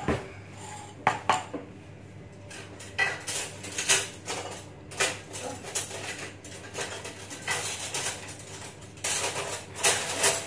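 Metal spoon and glassware clinking: many short, sharp clinks and knocks at irregular intervals, thickest near the end, as a small spoon knocks against a drinking glass and dishes are handled.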